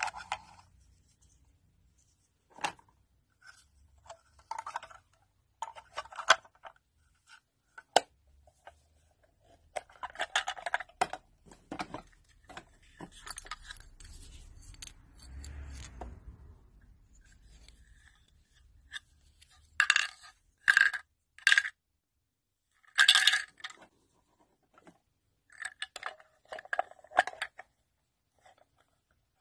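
Small hard-plastic toy kitchen pieces being handled: scattered clicks, taps and light clinks as miniature plastic food items are set down and a toy fridge's door and compartment are opened and closed, with a few louder clusters of clatter about two-thirds of the way through.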